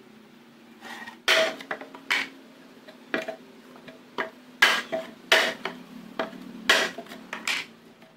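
Hammer blows nailing a wooden plank to a plywood box: about ten sharp strikes, unevenly spaced and some in quick succession, each with a brief ring.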